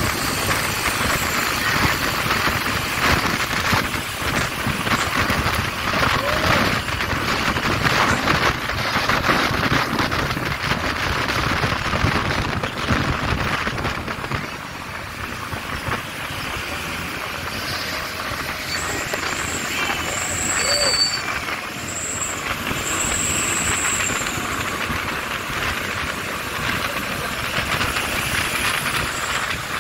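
Moving truck and traffic noise with wind buffeting the microphone. It eases to a quieter, steadier rush about halfway through, and a few brief high squeals come about twenty seconds in.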